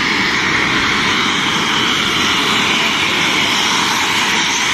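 Mi-17 helicopter's twin turboshaft engines running on the ground, a steady, loud turbine noise with a high whine.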